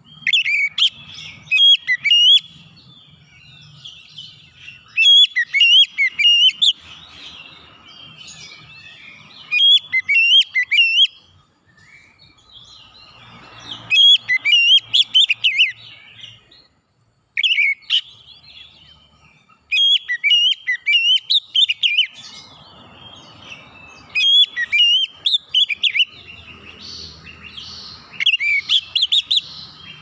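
Oriental magpie-robin singing: loud bursts of rapid, sweeping whistled phrases, each lasting a second or two and repeated every three to four seconds, with short pauses between them.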